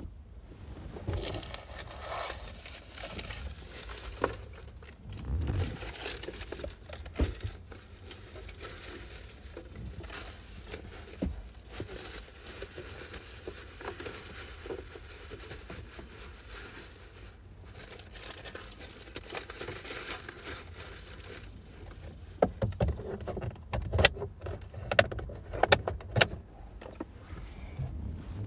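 Hand tools clinking and knocking against metal under the hood as the alternator's mounting bolts are tightened with a socket wrench. The clicks are scattered, with a quicker run of them near the end.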